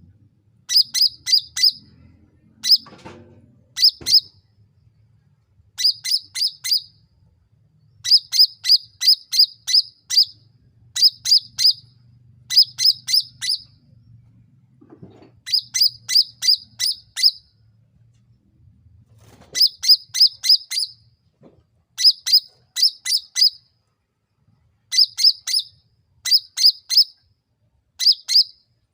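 Cucak ranting songbird calling in quick bursts of three to six short, sharp, high chirps, the bursts repeating with brief pauses between them.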